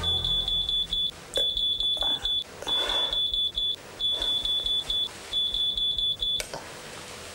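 Digital alarm clock beeping: one high-pitched tone in rapid beeps, grouped into bursts of about a second, five bursts in a row. It stops suddenly with a click about six and a half seconds in, as if it has been switched off.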